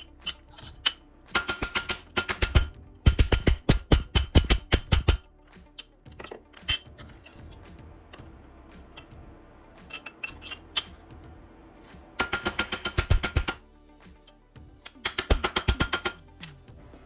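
Hand hammer striking angle aluminium clamped in a steel bench vise, bending it into a bracket. Four runs of quick blows, each strike ringing with a metallic tone, separated by pauses with a few single taps.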